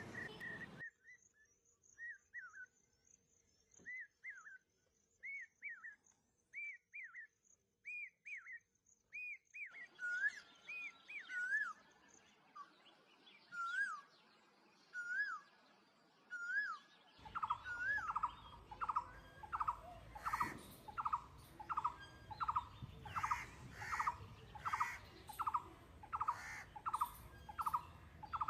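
Bird calls: short whistled notes that rise and fall, about one a second at first, then a steady run of about two a second in the second half. The background hiss jumps abruptly twice.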